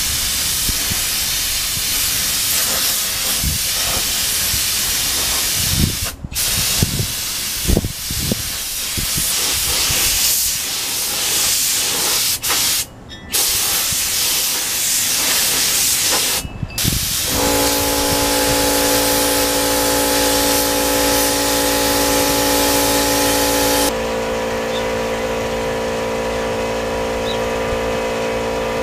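Air spray gun hissing steadily as it sprays clear coat, cutting out briefly three times as the trigger is let go. About halfway a steady hum of several tones joins under the hiss.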